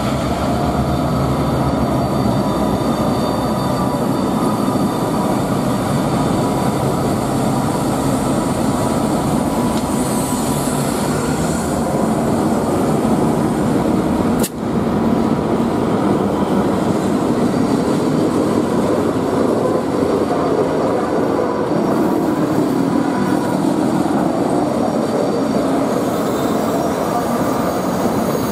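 A freight train's diesel locomotives running as the train approaches, then the locomotives and tank cars rolling past close by, wheels running over the rails. The sound breaks off sharply for an instant about halfway through.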